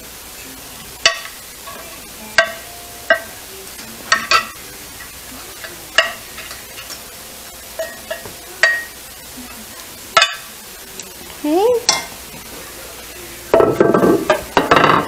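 Metal spoon clinking and scraping against a metal baking pan while spreading sauce over its bottom: about a dozen sharp clinks with a short ring, then a louder rough scraping near the end.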